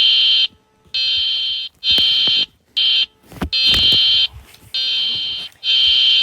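Emergency alert warning tone: a run of about seven loud, high electronic beeps of uneven length, most around half a second and one over a second long, separated by short gaps.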